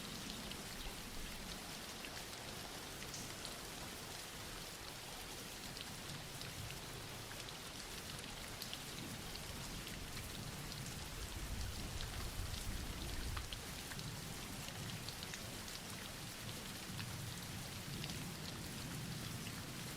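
Steady soft rain falling, an even hiss dotted with the small ticks of individual drops, swelling slightly in the middle.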